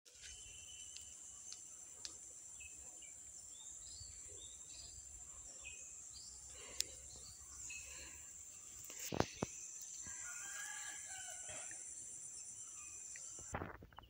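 Rural field ambience: a steady high-pitched insect drone that stops just before the end, scattered short bird chirps, and a rooster crowing faintly about ten seconds in. A few sharp clicks and a low rumble from the handheld phone come through as well.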